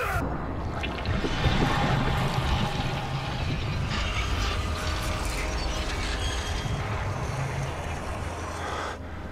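Sound-design effect of a man's body turning into a glassy, crystalline substance: a rushing, crackling texture over a low steady drone.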